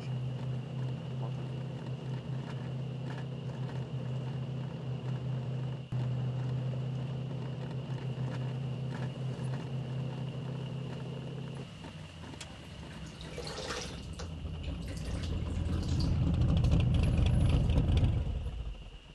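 Low steady engine drone of approaching vehicles for the first twelve seconds. Then water splashes in a basin as a face is washed, under a low rumble that grows louder and falls away near the end.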